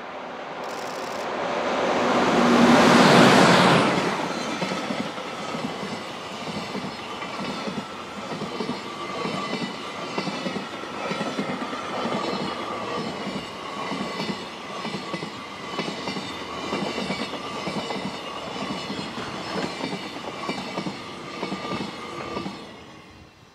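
JR Freight EH500 electric locomotive passing close, loudest about three seconds in. A long train of container wagons follows, with a rhythmic clickety-clack of wheels on the rails and a faint steady whine. The sound falls away suddenly as the last wagon passes, near the end.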